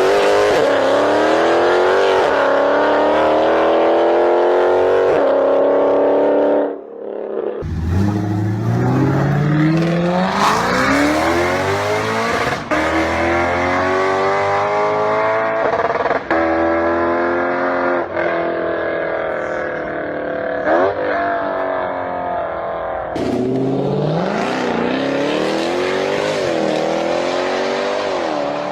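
Muscle car engines accelerating hard, their pitch climbing and then dropping at each gear change. Three clips are cut together, with a brief break about seven seconds in.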